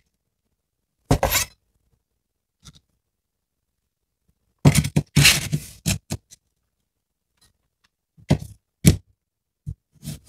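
Chef's knife scraping and knocking on a cutting board in short separate bursts as diced cucumber is scooped up on the blade. Near the end come a few sharp thunks of the blade cutting down through a fresh cucumber onto the board.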